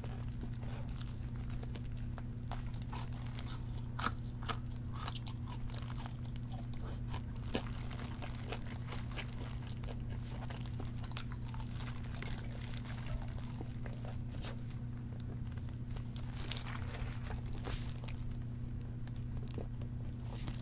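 Close-miked biting and chewing of crispy breaded fried chicken: a run of crackling crunches from the fried crust, with a few sharper crunches standing out, over a steady low hum.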